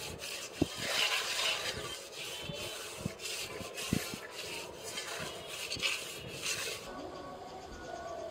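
Raw green banana being grated on a hand grater: repeated rasping strokes, about two a second, with a couple of sharp knocks, stopping about seven seconds in.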